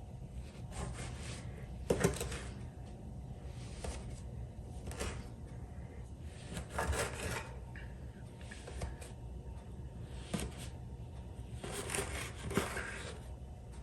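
Hands working floured dough on a work surface: soft, intermittent rubbing and scraping, with a few light knocks about two seconds in and near the end.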